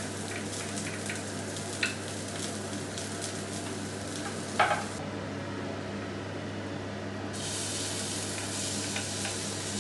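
Chopped onions sizzling in mustard oil in a frying pan, stirred with a spatula, with small utensil clicks and two sharper knocks against the pan. The sizzle strengthens again near the end as chopped tomatoes are scraped into the pan.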